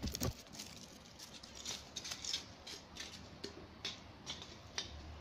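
Irregular light clicks and crackles from dry leaf litter and twigs, a few a second.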